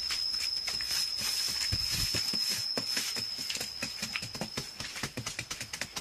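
Hand-tool work: a fast, uneven run of scraping and knocking strokes, with a steady high-pitched tone over them that stops near the end.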